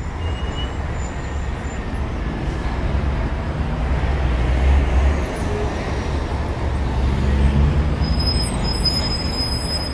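Road noise heard from inside a moving car: a steady low rumble of tyres and engine under a hiss of wind and road.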